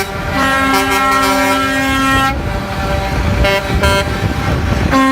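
Musical multi-tone vehicle horn playing a tune of long held notes that change pitch in steps, over a low engine-like rumble.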